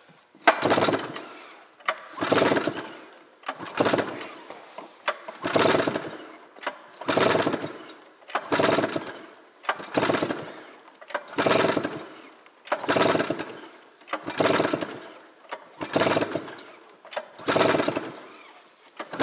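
Arctic Cat Mountain Cat 900 two-stroke twin being cranked over by hand on its pull-start rope, about a dozen pulls, one every second and a half. The spark plug is out for a compression test of the clutch-side cylinder, which comes up to a healthy 164 psi.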